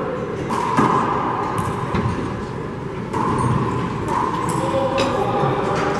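Rubber handball being struck by hand and slapping off the walls of an enclosed four-wall court during a doubles rally: several sharp smacks a second or so apart, echoing in the court.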